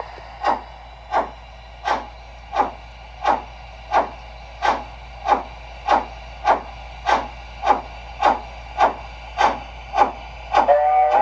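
Sound system of an LGB HSB Mallet G-scale steam locomotive playing steady, evenly spaced steam chuffs, about one and a half a second. Near the end a multi-tone steam whistle comes on and holds.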